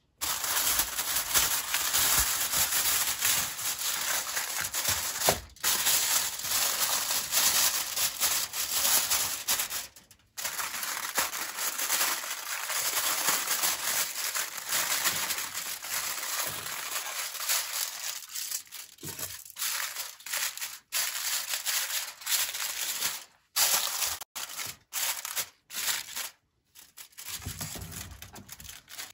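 Close-miked crinkling and crunching handling noise, cut into several takes that stop abruptly, most often near the end.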